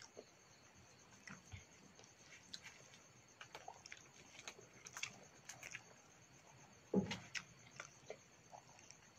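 Soft eating sounds: a person chewing rice and paneer masala, with small mouth clicks and smacks and fingers working rice on a steel plate. One louder knock comes about three-quarters of the way through.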